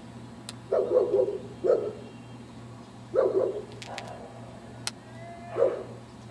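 A dog barking in four short bouts, the first about a second in and the last near the end.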